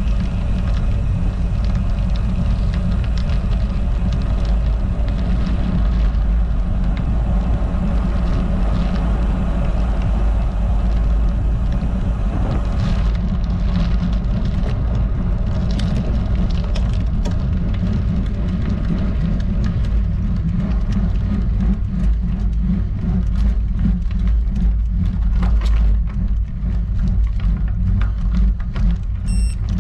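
Steady low rumble of wind and road noise on a bicycle-mounted camera's microphone while riding, with scattered light clicks from about halfway on.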